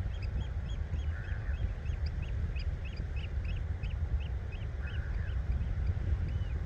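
A bird on the tidal mudflats calling a short, high, arched note over and over, about three times a second, over a steady low rumble.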